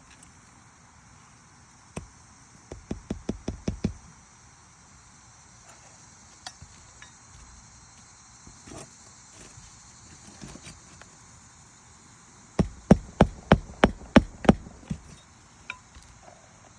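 Hammer driving roofing nails through a new asphalt shingle: one knock, then a quick run of about eight blows, and later a louder run of about ten blows, several a second.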